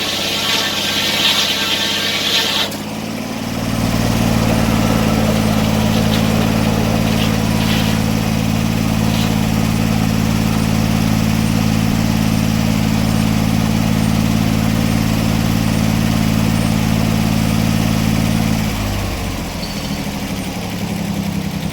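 An engine running steadily. A high hiss in the first few seconds stops, the engine comes up in level about four seconds in, holds steady, and drops back about nineteen seconds in.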